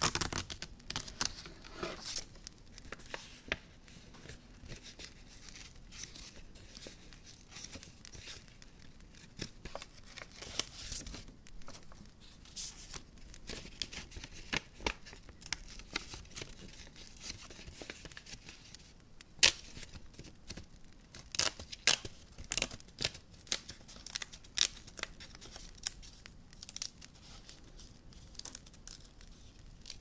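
Paper and plastic packaging being handled, rustling, crinkling and tearing, with scattered sharp crackles and snaps that come thickest in the second half.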